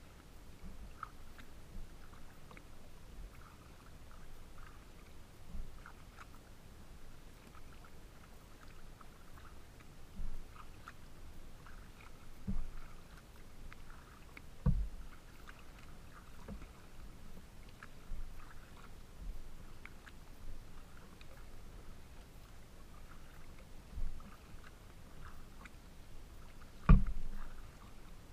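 Water splashing and lapping against the plastic hull of a Pungo 140 kayak as it moves through choppy water, with a handful of separate thumps against the hull, the loudest near the end.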